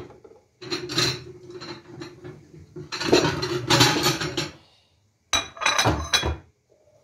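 Kitchenware clattering and clinking, with a steady low hum under the first few seconds. About five seconds in comes a short cluster of sharp clatters as a ceramic plate is set down on a granite countertop.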